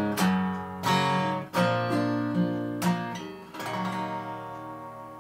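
Acoustic guitar strummed through a few closing chords. The last chord, a little under four seconds in, rings out and fades as the song ends.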